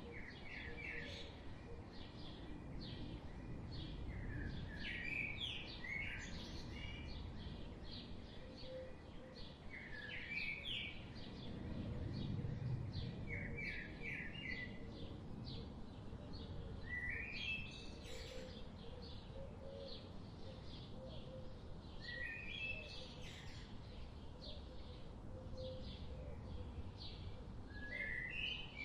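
Forest birdsong: one bird repeats a short phrase of quick rising notes every four to five seconds over a dense background of fainter chirps, with a low steady rumble underneath.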